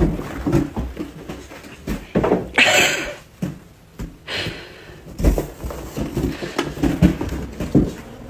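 A cat batting a balloon around a carpeted hallway: scattered soft bumps and scuffles from the balloon and paws, with a short hiss of noise about three seconds in.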